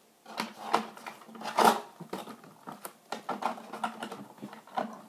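Toy packaging being worked open with scissors: irregular clicks, crinkles and snips of plastic and cardboard, with a louder rustle about a second and a half in.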